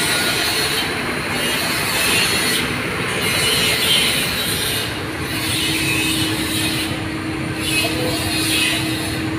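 Loud mechanical workshop noise with a harsh high-pitched hiss that swells and drops about every two seconds. A steady hum joins about five seconds in.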